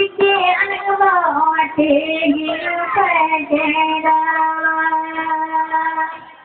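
A woman's voice singing a slow ceremonial chant in a winding melody, sliding between notes and ending on one long held note that stops shortly before the end.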